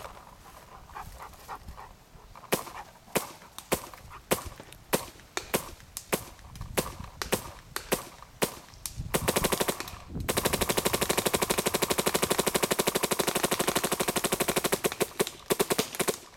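Bob Long Insight electropneumatic paintball marker firing. Single shots come about two a second for several seconds. About nine seconds in, a short burst turns into a long, very rapid stream of shots lasting some five seconds, and a few single shots follow near the end.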